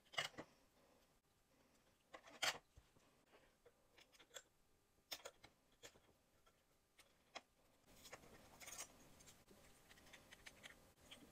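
Faint handling sounds of a small metal cutting die and cardstock being worked free with a plastic craft spatula and pick: a few sharp clicks and taps, the loudest about two and a half seconds in, and a brief scratchy rustle around eight seconds in.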